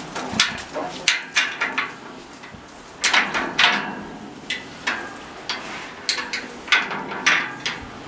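Metal mesh enclosure fencing knocking and rattling in irregular clusters of sharp clanks as young lions jostle against it.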